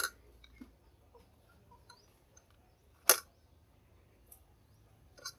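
Two sharp clicks about three seconds apart, with a few faint ticks between and near the end: a metal spoon knocking against a ceramic plate.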